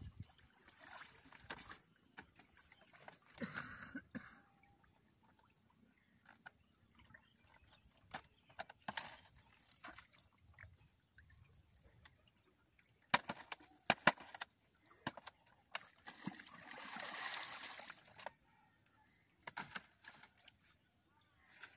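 Water dripping and splashing as a net line and a bamboo fish trap are hauled out of the water into a wooden boat, in short uneven bursts. A few sharp knocks come a little past halfway, then a longer splashing stretch of about two seconds.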